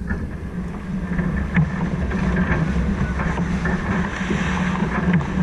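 Wind buffeting the microphone with a steady low rumble, and water rushing along the hull of a sailboat under way.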